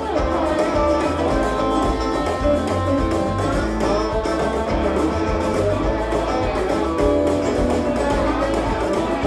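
Background music led by plucked guitar, over a low bass line.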